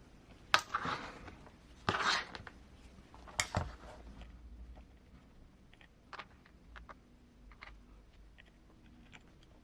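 Hands handling small RC car kit parts: a few sharp clicks and rustling bursts in the first four seconds, then faint scattered ticks.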